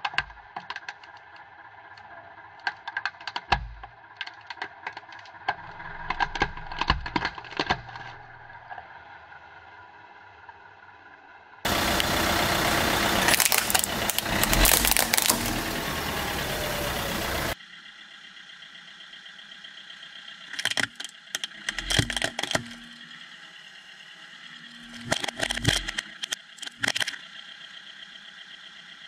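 Hard plastic toy cars cracking and snapping under a car tyre, in several clusters of sharp cracks, over a car engine running. Midway there is a loud, dense noisy stretch of about six seconds.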